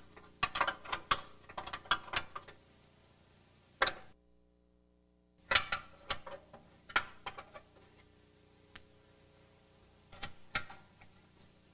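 Hand wrench clicking and clinking against the bolts and nuts of a GM double A-arm front suspension as they are loosened: irregular sharp metal clicks in clusters, with a short break about four seconds in.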